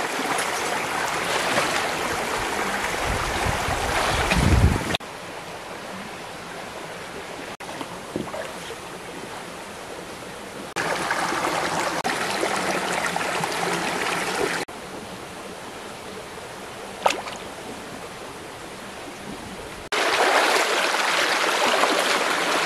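Shallow rocky stream rushing over stones, louder and quieter by turns. There is a low rumble about three to four seconds in and a single sharp click later on.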